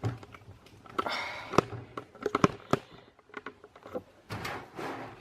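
Handling noise: rustling and a few sharp clicks and knocks as the camera is repositioned to get a view inside the PC case.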